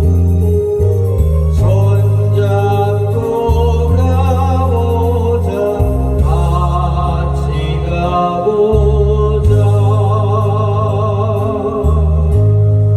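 Korean trot song backing music: deep bass notes held and changing every second or two under a wavering melody line with vibrato.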